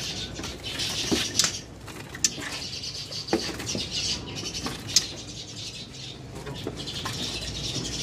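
High, steady twittering of many caged songbirds, with a few sharp taps and clicks scattered through it.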